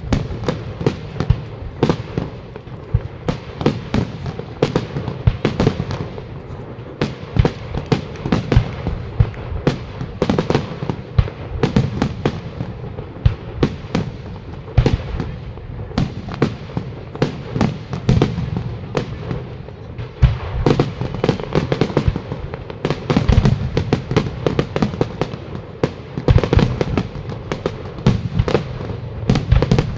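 Aerial fireworks display with shells bursting in rapid, irregular succession: several sharp bangs a second over a continuous low rumble.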